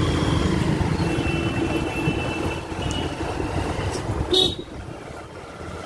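Busy street traffic: a motorcycle engine running close by, easing off after about two seconds, then one short horn toot about four seconds in.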